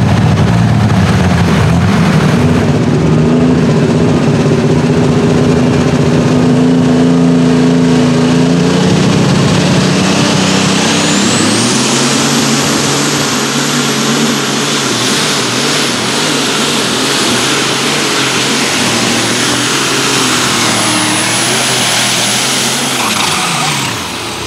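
Turbocharged diesel engines of light super stock pulling tractors running under full throttle. Partway through, a second Case tractor's engine takes over and its turbochargers spool into a high whine about eleven seconds in, which holds through the pull and winds down near the end as the engine comes off load.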